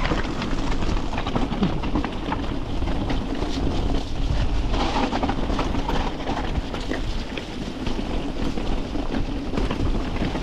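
Mountain bike rattling and clattering over rough, rocky ground, with a steady low rumble and many small knocks throughout.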